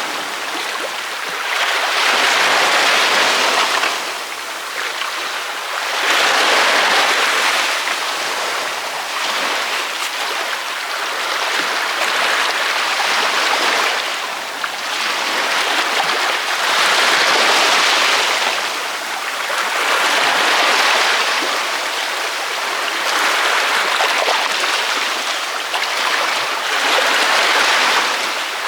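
Ocean waves breaking on a beach: a steady hiss of surf that swells and ebbs with each wave, about one wave every three to four seconds.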